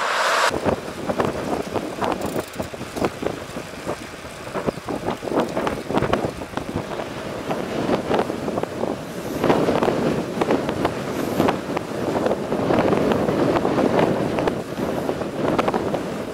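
Strong wind gusting over the microphone, a rough, uneven noise that swells and falls without rhythm.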